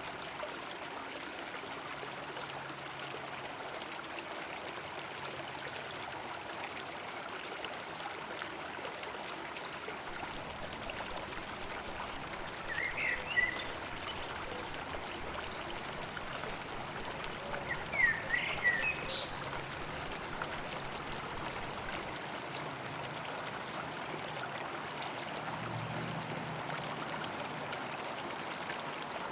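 River water flowing, a steady rushing stream. Two brief bursts of high chirps come near the middle.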